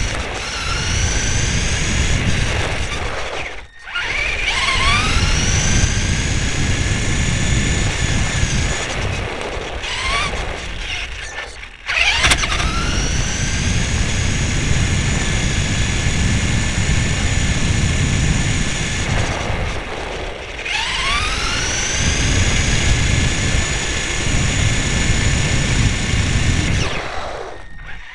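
RC car driving on asphalt, heard from on board. The motor's whine rises in pitch and levels off each time it speeds up, about four times, over a low rumble of the tyres on the road. There are brief drops where it slows, about 4 and 12 seconds in.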